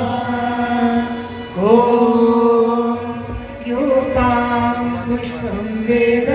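Hindu devotional chant sung in long held notes, each new phrase scooping up in pitch as it begins, once about one and a half seconds in and again near four seconds.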